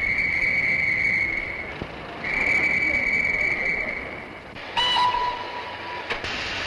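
Railway whistles at a station: two long, steady high-pitched blasts, then a shorter, lower whistle about five seconds in, over a background of station noise.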